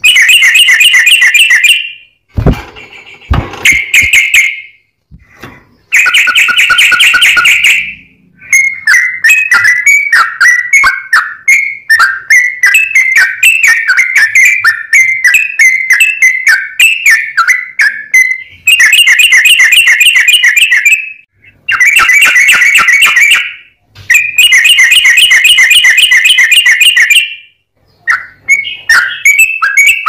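Yellow-vented bulbul singing loudly at close range: repeated fast trilled phrases about two seconds long with short pauses between them, and a longer stretch of varied warbling phrases in the middle.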